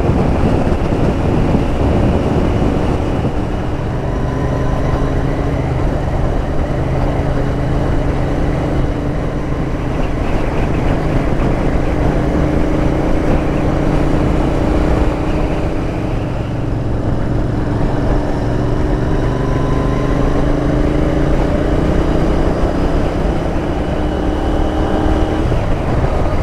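Royal Enfield Interceptor 650's parallel-twin engine running at cruising speed from the rider's seat, over steady wind and road noise. The engine note rises slowly, dips briefly about two-thirds of the way through, then climbs again.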